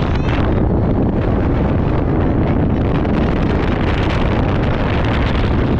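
Wind buffeting the microphone: a loud, steady rumble with no breaks.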